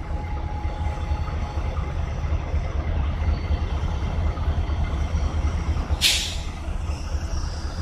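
CSX freight train passing through a road crossing, a steady low rumble, with one short, sharp hiss about six seconds in.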